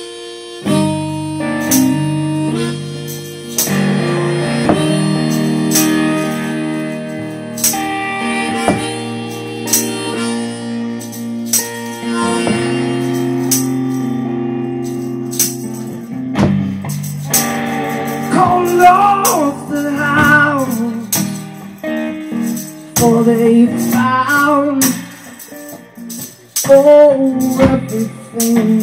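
Live acoustic-duo music: strummed guitar chords with a tambourine struck and shaken along. About two-thirds of the way in, a wavering melody line with vibrato comes in above the chords.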